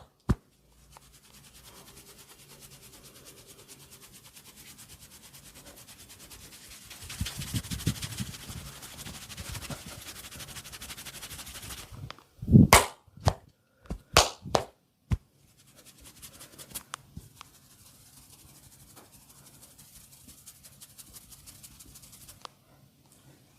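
Hands massaging: a long run of fast, fine crackling and rubbing, louder for a few seconds in the middle, then a quick series of about six sharp, loud hand slaps, then fainter crackling again.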